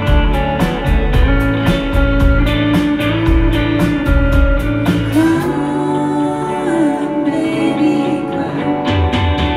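Live rock band playing: drums with a steady hi-hat beat, electric guitars, bass and a Roland Juno-60 synth. About halfway through the drums drop out, leaving held guitar and synth chords, and the drums come back in near the end.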